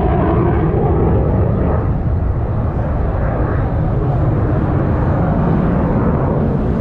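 Loud, steady fixed-wing aircraft engine noise, a dense rumbling roar with most of its weight in the low and middle range.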